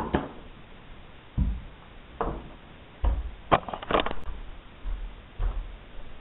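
Irregular sharp clicks and knocks, about ten in six seconds with a few duller thumps among them: a homemade rubber-band crossbow of scrap wood being handled and shot, its rubber band loosing a folded-paper wasp from an alligator-clip catch.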